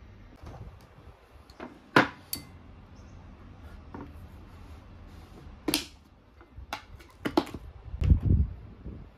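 Household items being handled and set down: a scatter of sharp clicks and knocks, the loudest at about two seconds and near six, and a heavier low thump about eight seconds in.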